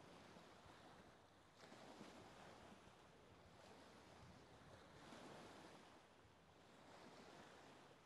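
Faint wash of small lake waves, swelling and easing every few seconds.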